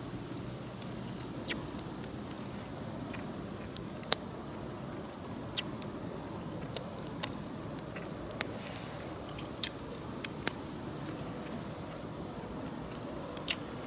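Wood campfire crackling: a steady low rush broken by sharp, irregular pops, about one a second.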